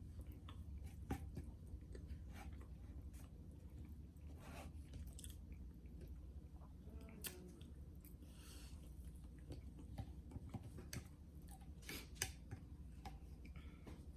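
A person chewing food close to the microphone, with scattered small wet clicks and smacks over a steady low hum; a brief rustle about eight seconds in.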